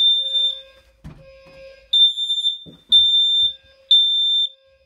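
Gentex fire alarm sounding, really loud, with high-pitched beeps in the three-beep temporal evacuation pattern: one beep closes a group, a pause follows, then three beeps a second apart. A weaker, lower tone sounds in the gaps between beeps.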